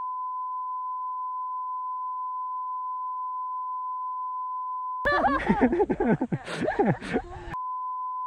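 Steady 1 kHz bleep tone dubbed over the sound track as a censor bleep. About five seconds in it breaks off for two and a half seconds of people talking, then the tone comes back.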